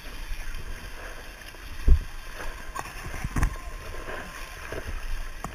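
People crawling on hands and knees through shallow wet mud, sloshing and splashing, with two heavy low thumps about two and three and a half seconds in.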